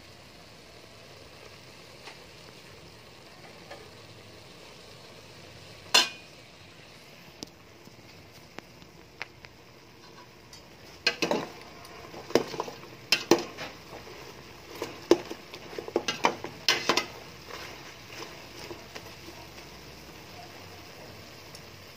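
Spatula stirring pork pieces in an aluminium stockpot, scraping and knocking against the pot's sides, over a faint steady sizzle of the meat frying on medium heat. One sharp ringing clink about six seconds in, then a run of knocks and scrapes for several seconds a little past the middle.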